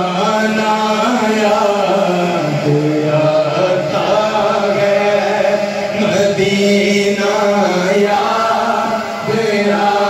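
Men singing a naat without instruments: a lead voice draws out long, slowly bending notes over backing singers holding a steady low note.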